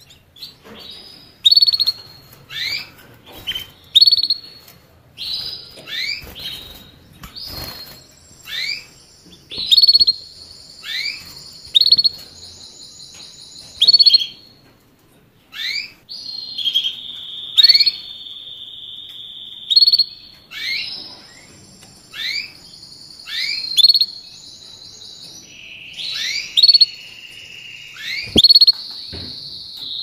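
Canary singing: sharp short falling notes repeated about once a second, joined in the second half by long, even trills held at a high pitch.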